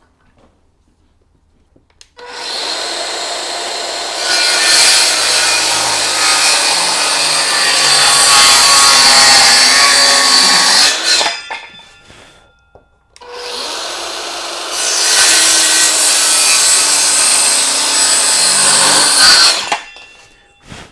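Handheld cordless circular saw making two cuts through a timber stair string. Each time the motor spins up and runs free for about two seconds, then runs louder as the blade goes into the wood, and winds down when the cut ends. The second cut follows the first after about two seconds.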